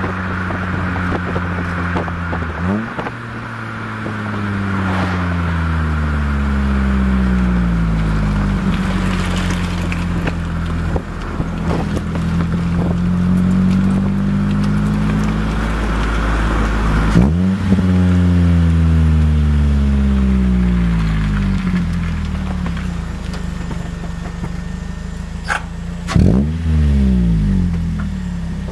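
Toyota Echo's four-cylinder engine heard at the tailpipe through a Scion xA TRD (Borla) axle-back muffler and a 4-2-1 header. The revs climb sharply three times, near the start, around the middle and near the end, each time falling back toward idle, with a slower rise and fall in between. A cloth wind sock rustles over the microphone.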